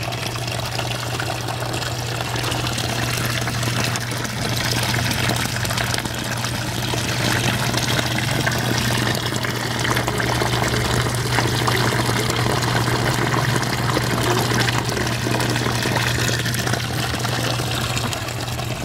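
Water pouring steadily out of the open end of an underground electrical conduit and splashing into a flooded pit: running water that a broken water line is forcing through the conduit. A steady low hum runs underneath.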